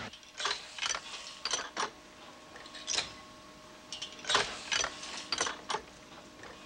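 Irregular mechanical clicks and knocks, about one or two a second and unevenly spaced, over a faint steady hum, like machinery ratcheting and clanking.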